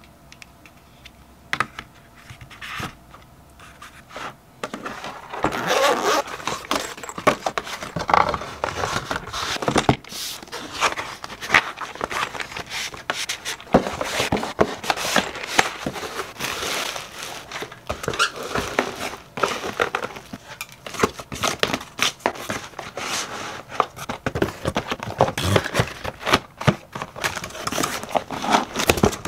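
Paper and cardboard packaging being handled: a paper sleeve slid over a boxed set and a cardboard shipping box's flaps moved, with crinkling, scraping and small knocks. It is sparse at first and becomes busy and continuous from about five seconds in.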